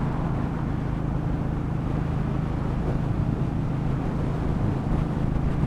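Steady engine and tyre noise of a car driving along, heard inside the cabin as an even low hum.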